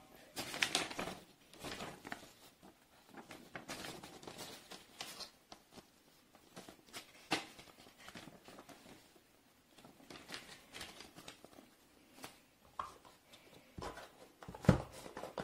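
Paper and card rustling and crinkling as a folded leaflet and an envelope are handled, with scattered light clicks. Near the end a single sharp knock as the cardboard phone box is handled.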